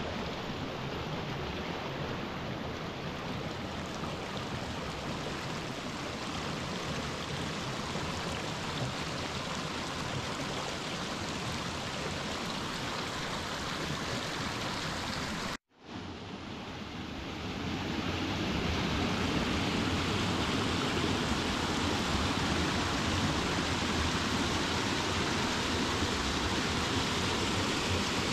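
Running water of a stream, a steady rushing. After a brief break about halfway through, the rush comes back louder and fuller.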